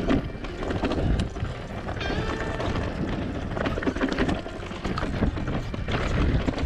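Mountain bike rattling and knocking as it descends a rough, rocky trail, with a constant jumble of sharp knocks and a low rumble of wind on the microphone.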